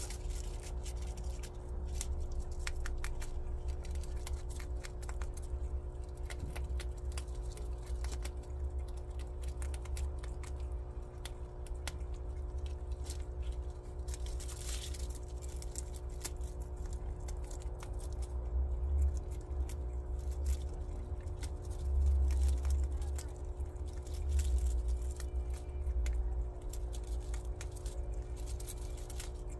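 Prairie dog chewing fresh grass stalks: a run of small crisp crunching clicks, over a steady low hum and a low rumble that swells a few times in the second half.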